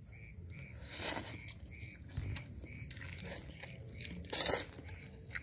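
Steady high chirring of night insects, with two short breathy rushes of noise, one about a second in and a louder one about four seconds in.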